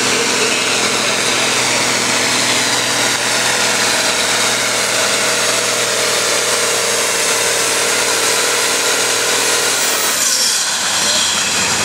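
Farm tractor engine running loud and steady at full throttle, under load, as it drags a weight-transfer pulling sled down a dirt track. About ten seconds in, the steady engine note breaks off and the sound changes as the pull ends.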